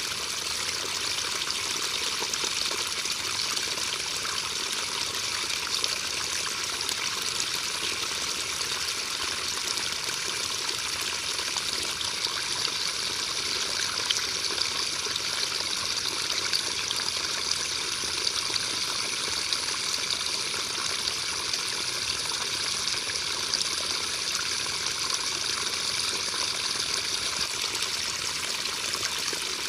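Steady rain: a dense, even hiss of falling drops, with single sharper drop hits standing out now and then.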